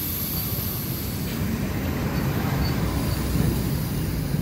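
Air hissing out of a Hero XPulse 200 4V's front tyre valve with the core removed, the hiss fading in the first second or two as the tyre goes down. A steady low rumble runs underneath.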